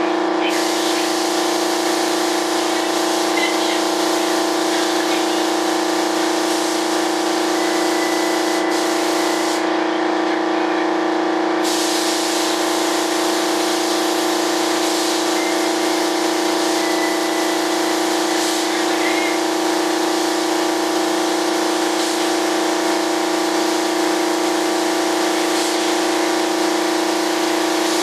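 Spray gun hissing as primer is sprayed onto a model jet fuselage, stopping for about two seconds around ten seconds in, then starting again. A steady machine hum, from the air supply, runs underneath.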